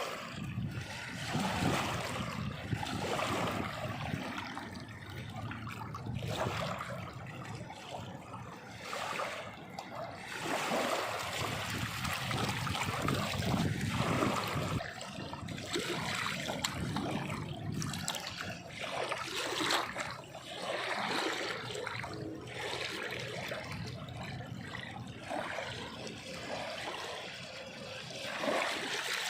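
Water splashing and trickling continuously, swelling and easing every second or two.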